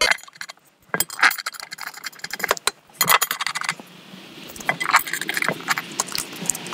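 Metal screws clinking and rattling as they are handled and set into the holes of a steel seat mounting plate: a scattered string of short, sharp clinks.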